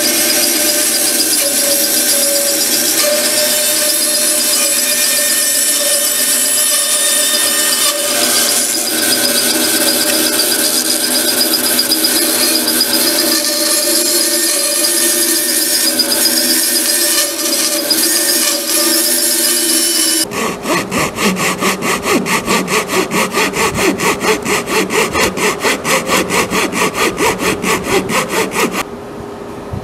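Bandsaw running, its blade nibbling out the waste between dovetail tails in a cedar board: a steady whir with a fixed hum and the noise of the cut. About twenty seconds in it stops abruptly, and a hand tool works the wood in quick, even strokes, about three a second.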